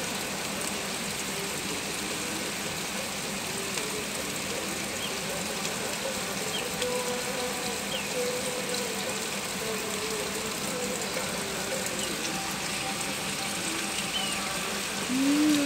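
Heavy rain falling steadily, a constant even hiss. Near the end a person hums a short note that rises and then holds.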